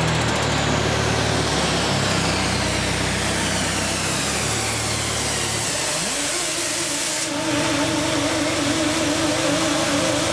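Steady machinery drone with a hiss of air. About six seconds in, the drone stops and a motor whine rises and holds steady as the chain hoist lifts and tips the steel outer form off the cured concrete burial vault, and the hiss cuts out soon after.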